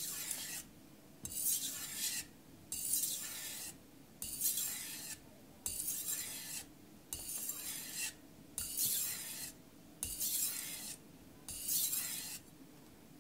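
Aogami carbon-steel kitchen knife scraped across a wet King 1000 whetstone in about ten separate strokes, roughly one a second, each a short high-pitched hiss with a quiet gap between.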